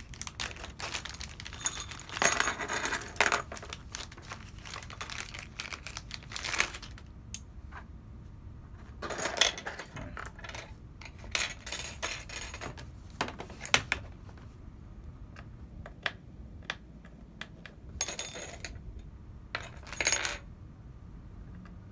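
Small screwdrivers being unwrapped from a thin plastic bag: bursts of plastic crinkling and rustling, with sharp metallic clinks and clicks as the tools knock together and are handled.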